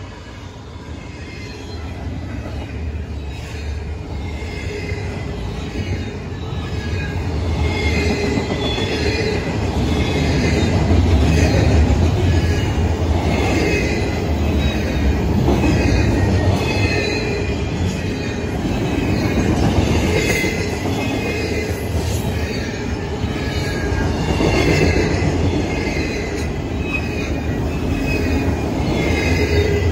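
Canadian Pacific freight train, led by three diesel locomotives, rolling past close by. A heavy low rumble of engines and wheels grows louder over the first dozen seconds, with repeated high-pitched wheel squeal over it.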